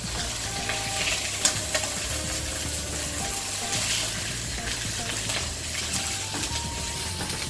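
A fish fillet sizzling as it fries in a pan, with a spatula scraping and knocking against the pan now and then.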